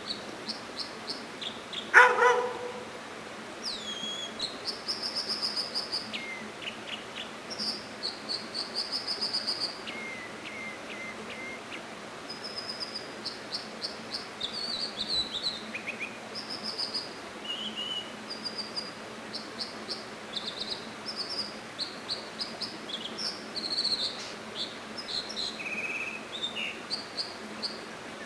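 American dipper courtship song: varied phrases of high, rapidly repeated notes and trills, each phrase given several times over. About two seconds in comes one loud, short, lower-pitched call.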